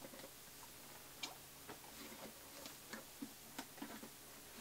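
Faint, irregular clicks and taps of a cardboard product box being opened and handled, about half a dozen over a few seconds.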